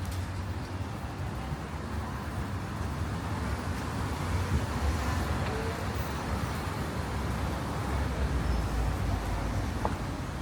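City street ambience: a steady rumble of road traffic with a general urban hum, swelling a little partway through.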